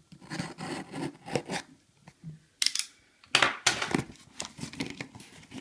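Product packaging being torn open and handled: irregular tearing and crinkling with sharp clicks, loudest in the second half.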